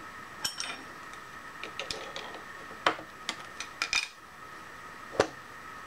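Small steel workpiece clinking and knocking against a steel machine vise as it is handled: a scattered series of sharp metallic clicks, over a steady faint machine whine.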